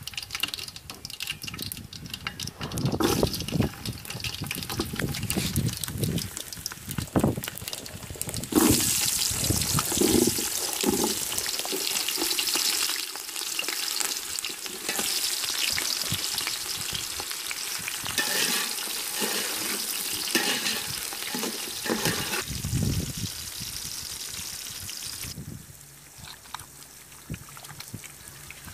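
Food frying in hot oil in a pan: a few knocks at first, then a loud sizzle starts suddenly about eight seconds in and dies down near the end.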